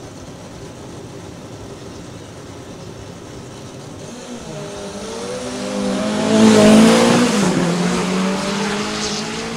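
Drag racing cars launching from the start line. After a few seconds of low background, the engines rev up about four and a half seconds in and the cars accelerate hard away. The sound is loudest around six and a half seconds in, then settles into a steadier engine note as they pull down the strip.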